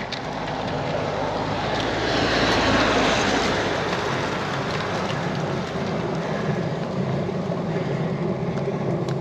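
An SUV passing close by on a narrow lane, its tyre and engine noise swelling to a peak about two to three seconds in, then easing, over steady wind noise on the microphone.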